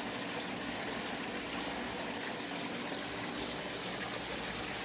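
Steady rushing noise, like running water or air, with a faint low hum underneath; it holds even throughout, with no distinct events.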